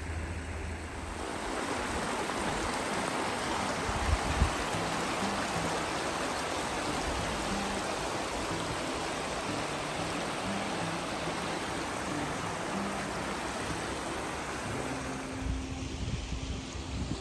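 Shallow mountain stream rushing over stones, a steady rush of water that swells a second or two in and eases off near the end.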